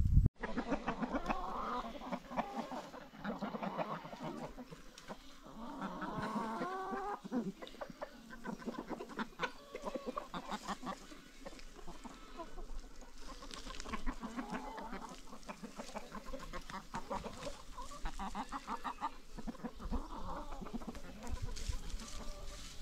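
A flock of chickens clucking and calling, many short calls overlapping from several birds at once.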